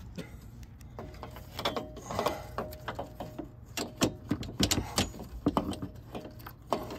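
Irregular metallic clinks, knocks and rattles of tools and hardware being handled, over a low steady hum.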